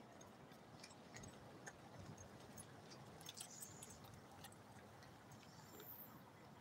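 Near silence: faint background hiss with a few scattered soft clicks.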